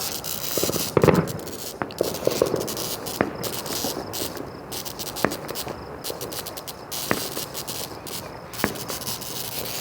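Sharp single cracks about every one to two seconds, with a louder cluster of pops about a second in, over a steady high hiss.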